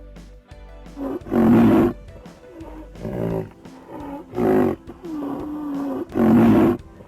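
Tiger roaring three times, with quieter moaning calls in between, over background music.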